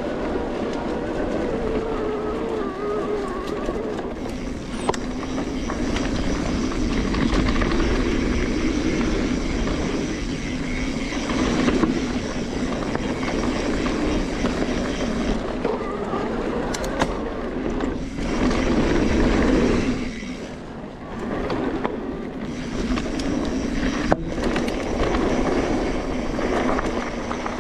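Mountain bike riding fast down dirt singletrack, heard from a camera on the rider: a steady rush of wind noise with tyre rumble and rattle over the dirt, easing briefly a few times in the second half.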